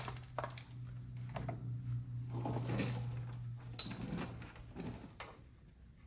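Scattered knocks and light metal clinks of tools and parts being handled at a car's front suspension, with one sharper clink that rings briefly about four seconds in. A steady low hum runs underneath and stops a little after four seconds.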